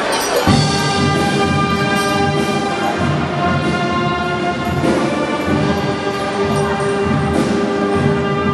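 A wind band of trumpets, trombones, clarinets, saxophones and tuba strikes up about half a second in and plays on in held notes and chords.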